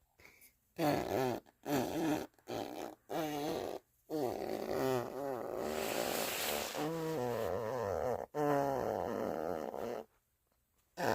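Flatulence sounds in a series: four short pitched farts, then a long wavering one of about four seconds with a hissy stretch in the middle, then one more of over a second.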